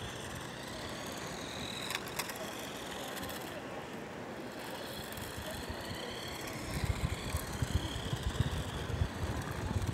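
Outdoor ambience with a steady background hum of distant traffic; from about two-thirds of the way in, wind buffets the microphone in irregular low rumbling gusts.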